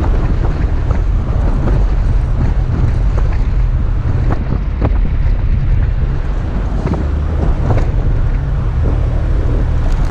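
Toyota FJ Cruiser's 4.0-litre V6 driving in deep sand: a steady low engine drone with wind buffeting the microphone and scattered small knocks and rattles throughout.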